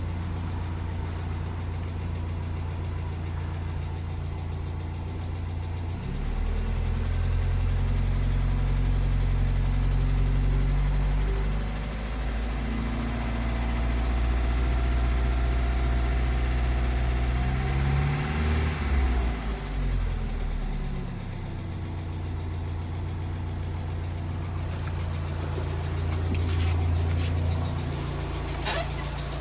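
1992 Mazda Miata's 1.6-litre four-cylinder engine running with a tick, which the owner can't tell apart as lifter tick or rod knock. It idles, is held at a higher speed from about six seconds in, is revved up and down a few times around two-thirds of the way through, then drops back to idle.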